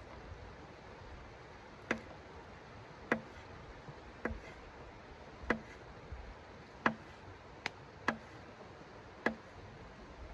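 Knife blade clicking against a hard tabletop as something is cut on it, a sharp single tap about every second, eight in all.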